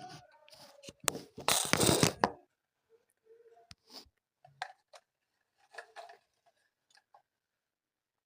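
Handling noise close to the microphone: a loud rustle with sharp clicks in the first couple of seconds, then only faint scattered clicks and small knocks.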